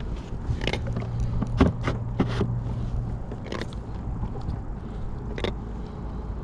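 Scattered knocks and scrapes of gear and hands against a kayak hull, several short sharp ones, over a steady low rumble of wind and water. A low hum joins for a couple of seconds about a second in.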